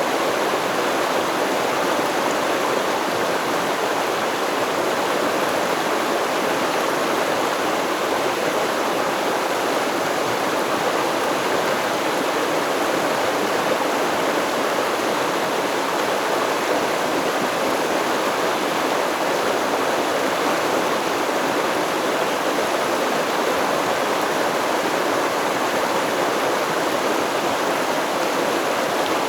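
Stream water flowing over rocks, a steady, unbroken rushing with no changes or separate events.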